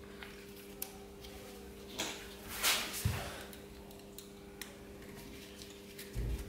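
Faint metallic clicks and scrapes of a slotted 266 mm brake disc being seated on the hub while its retaining screw is fitted by hand, with a short rustle and a dull knock near the middle, over a steady low hum.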